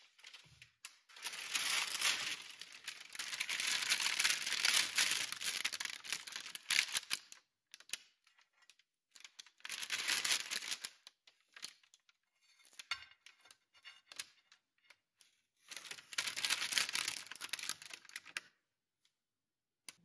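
Baking parchment crinkling and rustling as it is handled and pressed into a steel serving dish, in three long spells with lighter crackles between.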